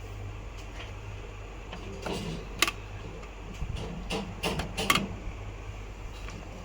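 A run of sharp mechanical clicks and knocks between about two and five seconds in, over a steady low hum.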